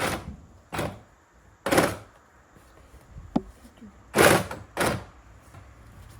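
Five short bursts of noise, each about half a second, and one sharp click just past three seconds in, from the reciprocating saw being set against the 2x4 plate and handled at the start of the cut.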